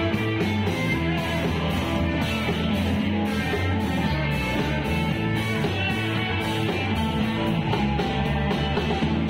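Live band playing: electric guitar, bass guitar and drums, with a steady drum beat.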